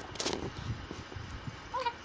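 A one-month-old baby's soft sounds: a short breathy huff just after the start, then a brief high squeak of voice near the end.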